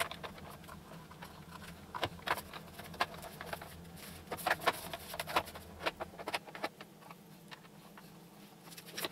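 Scattered light clicks and taps of the plastic side housing of a Festool Kapex miter saw's head being handled and pressed into place during reassembly.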